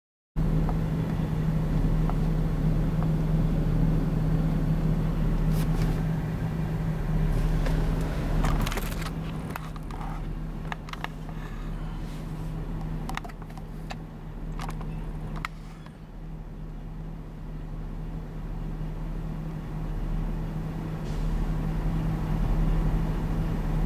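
A vehicle engine idling steadily, a low even hum, with a few short clicks and knocks through the middle.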